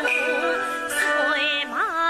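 Yue opera instrumental accompaniment: a melody of long held notes that slide and waver in pitch, with a bend up and back down near the end.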